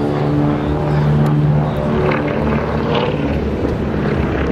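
A 1943 Beech 18 flying aerobatics, its two Pratt & Whitney R-985 Wasp nine-cylinder radial engines droning steadily at a distance.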